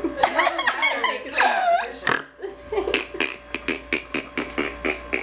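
Voices and a drawn-out vocal sound for the first two seconds or so, then a run of short sharp clicks, several a second, as people eat a snack by hand from piles on paper towels.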